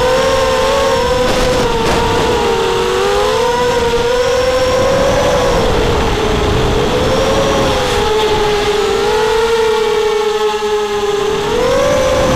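Racing quadcopter's Bolt 1806 2300 kV brushless motors and 5-inch props whining as heard from on board, the pitch wavering up and down with the throttle, with wind rushing over the mic. The whine sags lower for a couple of seconds near the end, then rises sharply as the throttle is punched again.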